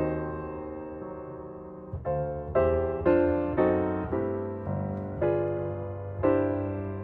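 Background piano music: a chord rings and fades for about two seconds, then notes and chords are struck at a relaxed, steady pace.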